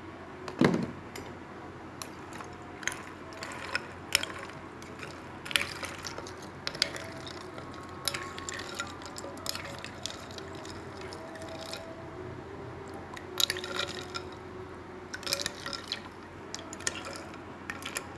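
A metal spoon stirring ice cubes and jelly strips in a bowl of iced drink: irregular clinks and clicks of ice and spoon against the bowl, with liquid swishing. A duller knock comes about a second in.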